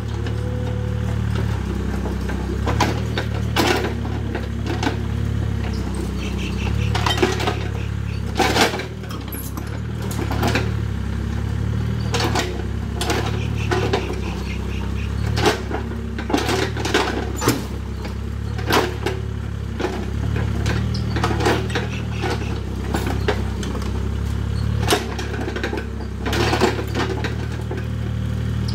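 Hitachi EX30 mini excavator's diesel engine running steadily while it digs, with frequent irregular sharp metallic clanks and knocks from the bucket and its linkage striking dirt and stones.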